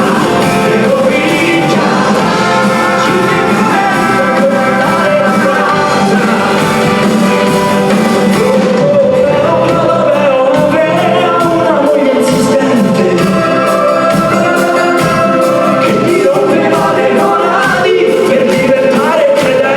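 Live band playing a song, with sung vocals carrying the melody over the full band throughout.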